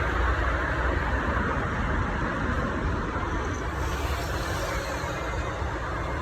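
Steady rumbling road-vehicle noise with no distinct events.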